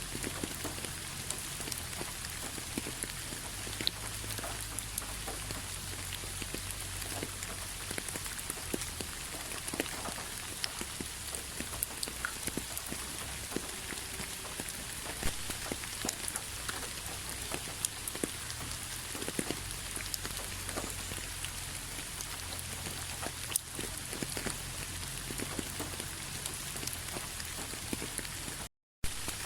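Steady rainfall, an even hiss with many separate drops ticking sharply on a surface. It cuts out completely for a split second near the end.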